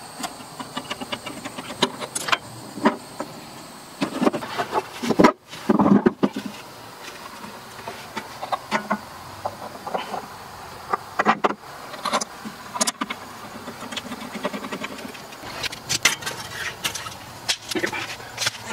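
Scattered small clicks, clinks and rattles of metal being handled as welding wire is threaded through the wire-feed mechanism of a wire welder, with a louder cluster of knocks and rustling about five to six seconds in.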